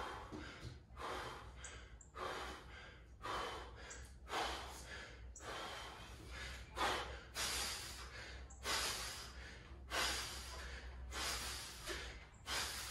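A man breathing hard in loud, rasping gasps about once a second, out of breath from chest-to-bar pull-ups deep into a workout.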